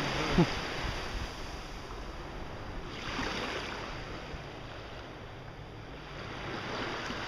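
Small waves washing up a sandy beach, surging twice, with wind buffeting the microphone. A brief pitched sound right at the start.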